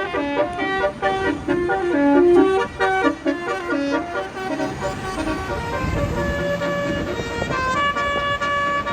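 Tour bus's basuri telolet horn playing a quick, stepping melody of several horn tones sounding together. The notes jump several times a second and move higher in the second half. A low rumble, likely the bus engine, swells in the middle.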